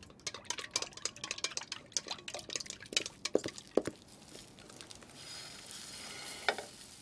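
Quick, irregular clinks of a whisk or spoon against a mixing bowl as pancake batter is stirred, then a steady sizzle of batter frying in a hot pan from about five seconds in, with one sharper click near the end.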